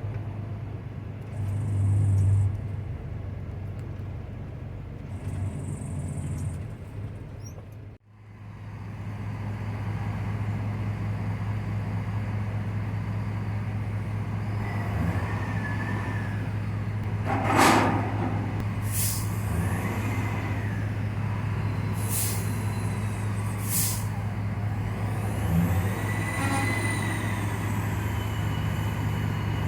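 Semi-truck's diesel engine running, then after a cut a steady low diesel hum with several short air-brake hisses and high squealing tones, as of rail cars moving in a yard.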